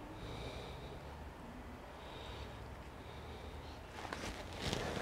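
Faint steady low hum of a quiet room. About four seconds in, a few short breaths come close to the microphone.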